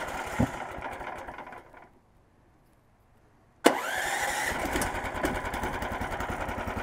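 The small engine of a Snowdog Sport B13 MER motorized track dog being restarted: a first cranking noise fades out within about two seconds, then after a moment of near silence the engine catches about three and a half seconds in and settles into a steady idle.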